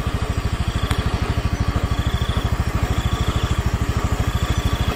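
Vehicle engine idling with a fast, even low pulse.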